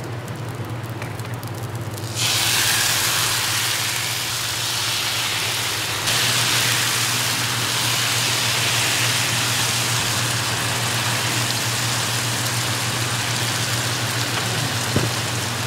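Food sizzling in oil in a hot frying pan, the sizzle starting suddenly about two seconds in and getting louder again around six seconds, over a steady low hum.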